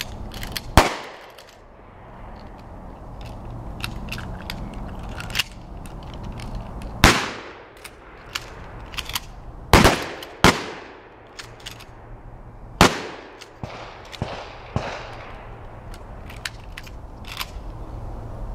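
Shotgun shots: five loud blasts, one about a second in, then three close together around seven to ten and a half seconds, and a last one near thirteen seconds. Many fainter sharp cracks fall between them.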